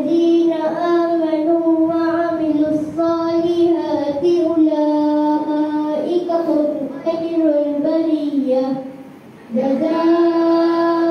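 Children chanting a Quran recitation in long, drawn-out melodic notes that rise and fall, with a short breath pause about nine seconds in before the chant resumes.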